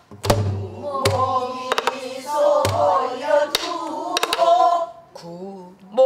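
Pansori-style Korean singing of a danga phrase, accompanied by a buk barrel drum keeping the jangdan: deep thumps on the drumhead and sharp cracks on the drum's wooden shell, about six strokes in all.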